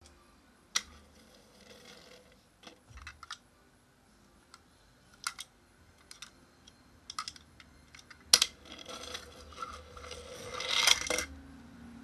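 Toy train handled and rolled by hand on a wooden tabletop: scattered sharp clicks and knocks, then a rattling roll of its wheels that builds over a few seconds near the end and stops suddenly.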